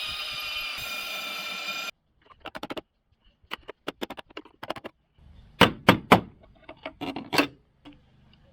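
Background music that cuts off about two seconds in, followed by a series of irregular sharp clicks and knocks; the loudest are three strokes in quick succession just past the middle.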